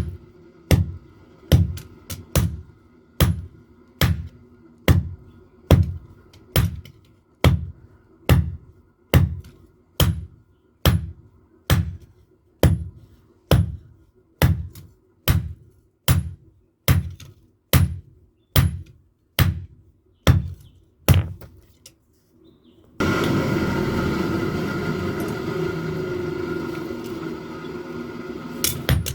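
Background music with a slow, steady, deep drum beat, a little more than one beat a second. The beat stops about three-quarters of the way in, and after a brief gap a denser, continuous passage takes over.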